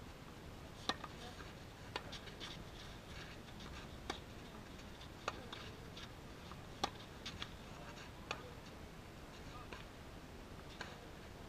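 Tennis rally: the sharp pop of racket strings striking the ball, with softer ball bounces in between, about every one to two seconds over a faint background.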